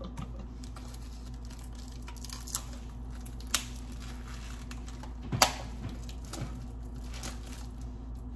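Faint handling sounds: a few light clicks and taps, the sharpest about three and a half and five and a half seconds in, over a steady low hum.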